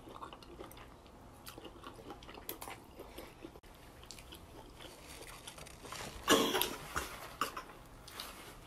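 Close-up mouth sounds of two people eating a spicy seafood boil: biting into corn on the cob, chewing and wet lip smacks, with scattered small clicks. A louder burst of mouth noise comes a little past six seconds in.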